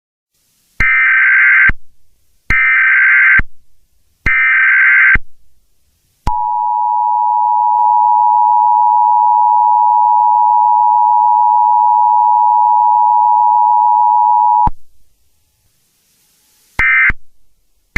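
Emergency Alert System activation: three one-second bursts of the digital SAME header tone, then the two-tone EAS attention signal held steady for about eight seconds, marking the start of an alert. A short data-tone burst follows near the end.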